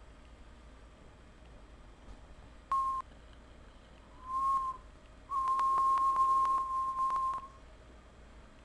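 A person whistling one steady note three times: a short note, a brief one that rises and falls, then a long held note of about two seconds. Each note comes with a breathy hiss and some clicks.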